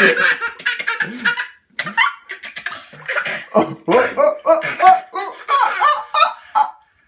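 Toddler laughing in repeated bursts of belly laughs and giggles.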